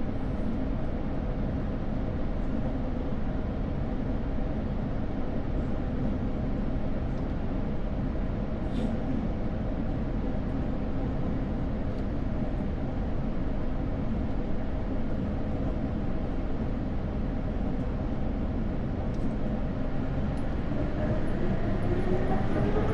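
Jet airliner engines and cabin air heard inside the cabin as a steady drone with a low rumble. About 21 seconds in, a rising whine sets in as the engines spool up toward takeoff thrust.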